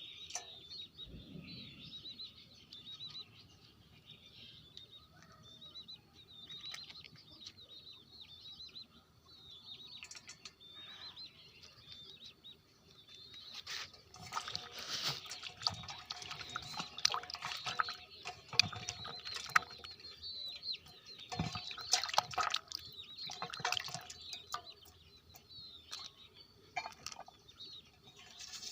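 Birds chirping faintly in the background, with a busier stretch of clicks and knocks from about fourteen to twenty-four seconds in, from something being handled close by.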